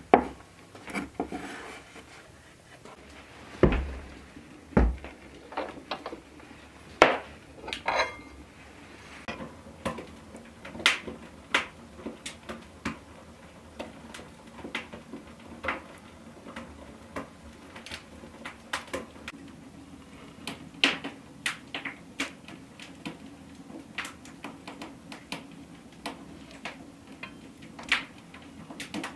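Kitchen handling sounds with no speech: a large knife cutting rolled pastry into strips on a wooden table, with a couple of heavier knocks early on, then a spoon scraping and clinking against a metal pot and a ceramic tart dish as thick apricot filling is ladled into the pastry shell, a long run of separate clicks and taps.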